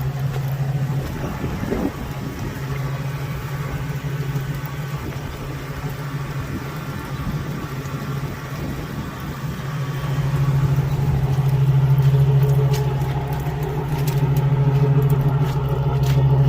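RV engine running under heavy load as the motorhome tries to pull free of mud, a steady hum that swells louder about ten seconds in and again near the end as it is given more throttle.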